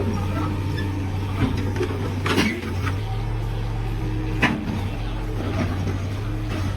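An engine running steadily with a low hum, with two sharp knocks, one a little after two seconds in and one about four and a half seconds in.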